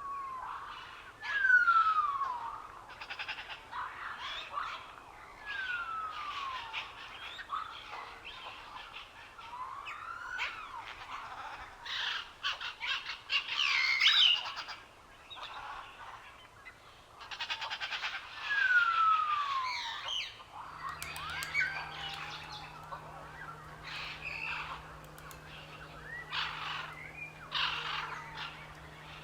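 Several wild birds calling and chirping, with a clear whistle sliding down in pitch repeated every few seconds among shorter chirps and trills. A faint steady low hum comes in about two-thirds of the way through.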